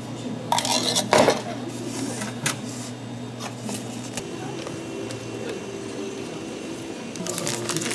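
Clinks and knocks of dishes or utensils being handled: a short clatter about a second in, another knock a little later and more clatter near the end, over a steady machine hum.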